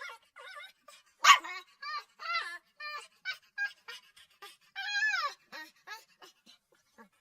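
Puppy crying: a rapid string of short, high-pitched whimpers and yelps, the loudest a harsh yelp just over a second in, with a longer whine falling in pitch about five seconds in.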